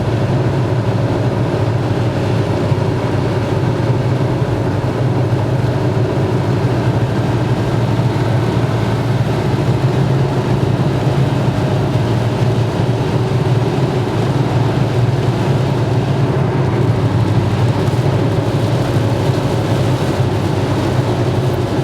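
Steady in-car noise of driving through heavy rain on a water-covered highway: tyres running through the water and rain on the car, over a constant low road drone.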